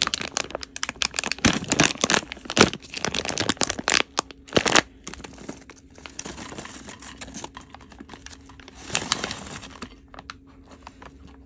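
Plastic marshmallow bag crinkling and rustling as marshmallows are poured into a bowl. Dense crackling for the first few seconds, then a quieter stretch and another short burst of crinkling later on.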